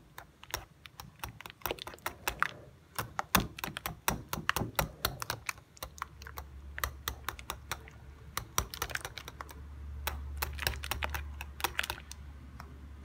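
Wire whisk clicking and tapping against a glass bowl in quick, irregular strokes as it mashes lumps of firm cream cheese into a liquid cream mixture. A low steady hum comes in about halfway through.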